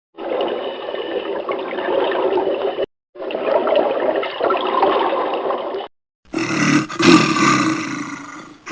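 A large animal roaring: the same rough, drawn-out roar is heard twice in a row. About six seconds in, a different animal call follows, loud at first and then fading.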